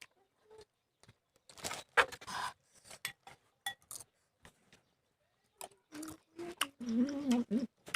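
Eating sounds from someone eating raw kamias: scattered clicks and short crunchy, wet mouth and handling noises, busiest about two seconds in. Near the end comes a short hummed vocal sound.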